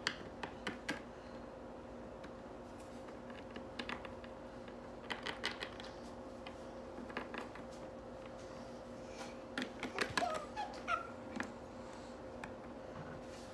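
Small plastic toy figurines being handled and set down on a stone countertop: scattered light taps and clicks, several in quick clusters, over a faint steady hum.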